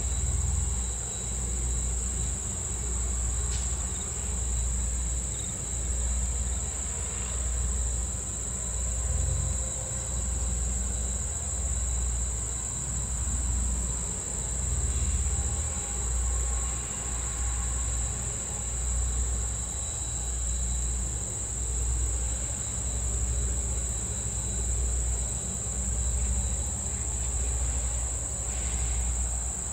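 Late-summer insects give a steady high-pitched buzz, over a low rumble that pulses about once a second from the steam train standing by.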